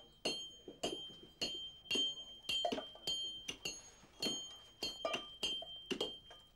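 Metal hammers striking limestone blocks, dressing the stone: a quick, uneven series of sharp clinks, about two a second, each blow ringing briefly.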